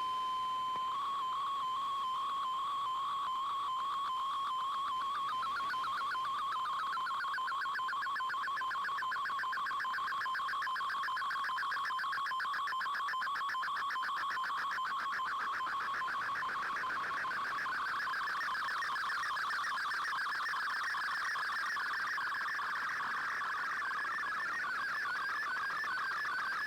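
Shortwave Radiogram digital data signal received on an Icom IC-R8600 shortwave receiver. A steady single tone for about a second, then a fast, even warbling of tones that runs on without a break.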